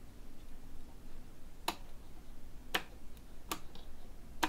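Four short, sharp plastic clicks about a second apart, starting a little under two seconds in, as fingers handle parts on the opened circuit board of a toy helicopter's radio remote control, where the on/off switch's solder points have come loose.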